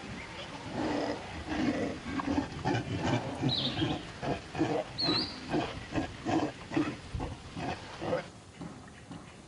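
Macaque monkey giving a long run of short, low calls, about three a second, with two brief high squeaks among them.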